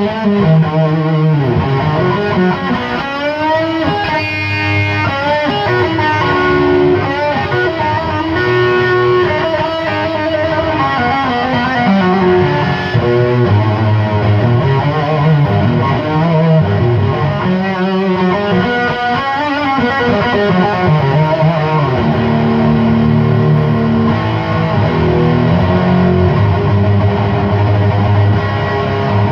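Electric guitar played through a Chupacabra 100 amplifier with its clipping diodes switched off, giving a loud, distorted tone likened to a hot-rodded JCM 800. It plays single-note lead lines with string bends, then settles into longer held low notes and chords in the last few seconds.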